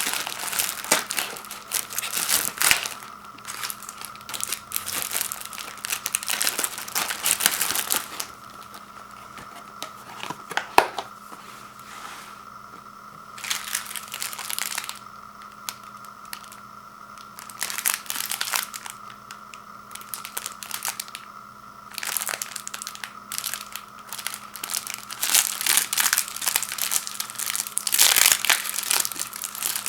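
Microwave popcorn packaging being handled and opened: crinkling, rustling and tearing of the box and the sealed bags, in irregular bursts with quieter pauses between them.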